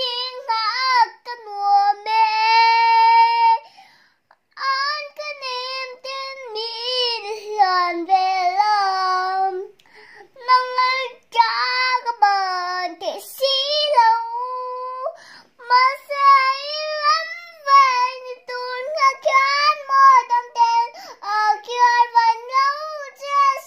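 A three-year-old girl singing unaccompanied in a high voice, gliding between notes and holding some, in short phrases with a brief pause about four seconds in.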